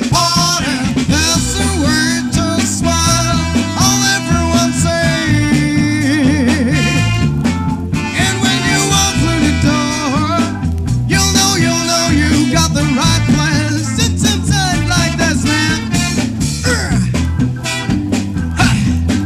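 Funk band music played from a vinyl record: a driving bass line and steady beat under guitar and melody lines.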